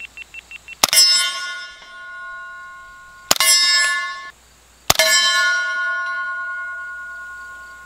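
Three suppressed shots from a CZ Scorpion Micro 9mm pistol fitted with a SilencerCo Hybrid 46 and firing subsonic ammunition. Each shot is followed at once by a steel target ringing with a long, slowly fading clang. The shots come about a second in, just over three seconds in, and about five seconds in.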